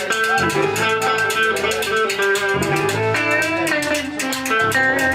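Live band playing an instrumental break in a pop song: guitar over a steady drum beat.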